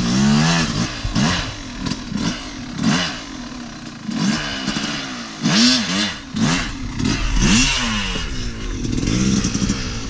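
Yamaha YZ250 two-stroke dirt bike engine being revved in repeated throttle blips, the revs rising and falling about once a second.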